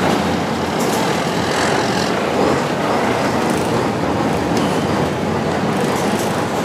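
Steady drone of a Chao Phraya river boat's engine, heard from inside the open passenger cabin as the boat comes in at a pier.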